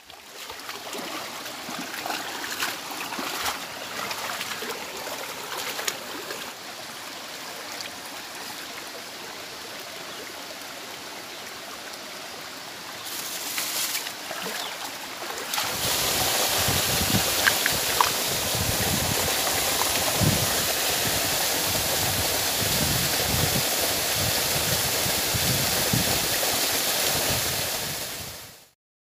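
Shallow stream running over stones, with irregular splashes of someone wading through the water in the first half. About halfway through the water rush becomes louder and fuller, and it stops abruptly just before the end.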